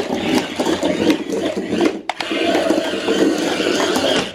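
A small mechanism rattling and clicking steadily, with a brief break about two seconds in.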